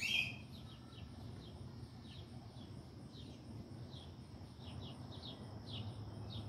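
Outdoor birdsong: a small bird calling with short, falling chirps about twice a second, the loudest one right at the start. Under it run a faint low hum and a faint high pulsing buzz.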